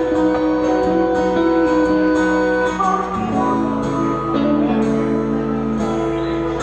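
Small live band playing: acoustic guitar strumming under long held notes that change pitch every second or so, from a harmonica.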